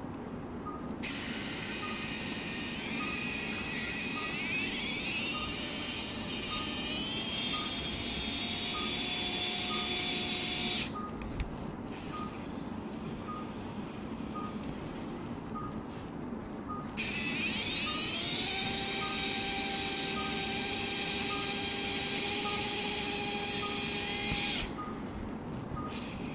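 High-speed otologic surgical drill running twice, about ten and then eight seconds, with a pause between. Each time its whine rises in pitch as it speeds up and then holds steady while the bur drills a hole through bone for a prosthesis hook. A faint short beep repeats about every 0.8 seconds.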